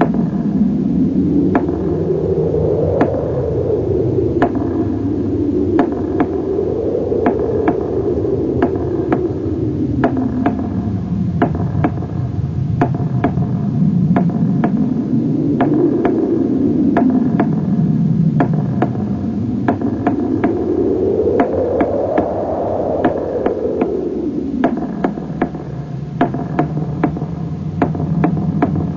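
Synthesizer soundtrack: a whooshing noise that slowly rises and falls in pitch several times, with scattered sharp clicks over it.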